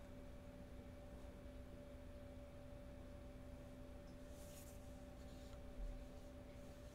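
Near silence: a faint steady electrical hum, with a faint brief scrape about four and a half seconds in and a soft low bump near six seconds.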